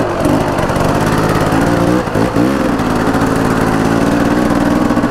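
Enduro dirt bike engine running under way, its pitch dipping and climbing again about two seconds in.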